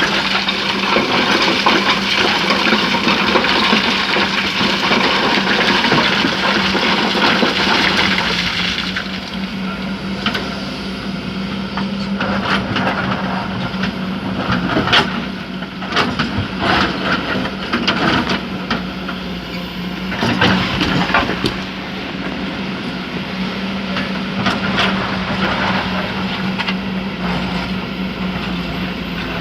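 Excavator engine running with a steady hum while sand and stones pour out of the bucket with a rushing hiss for about the first eight seconds. After that come scattered knocks and clanks of rock and steel over the engine.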